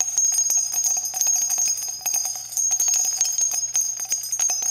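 Jingling bells in a rapid, continuous tinkle over a steady high ringing, as in an added outro sound effect.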